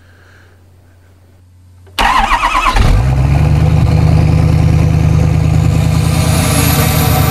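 Straight-piped, DPF-deleted Ford 6.7 L Power Stroke V8 turbodiesel cold-started. The starter cranks briefly about two seconds in, the engine catches within about a second, and it settles into a loud, steady idle with no muffler. A thin high whine climbs in pitch as it idles.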